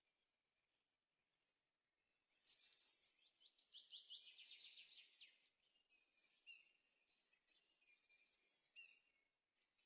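Faint birdsong: after a quiet start, a rapid trill of repeated high notes lasting about three seconds, then a few short high whistles.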